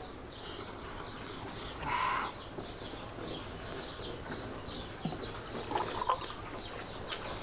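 Birds chirping and a chicken clucking in the background, with a few short sharp clicks a little after the middle.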